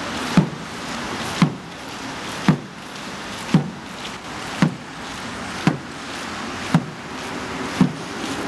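Traditional Korean drum beaten in a slow, steady marching beat: eight even strokes about a second apart, each a short low boom.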